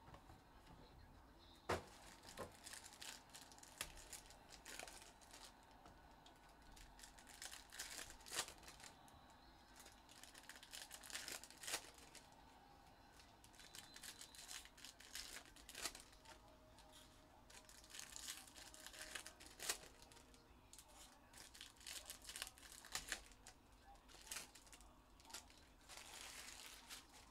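Faint crinkling and tearing of trading-card pack wrappers being ripped open, with many small sharp clicks and rustles of packs and cards being handled.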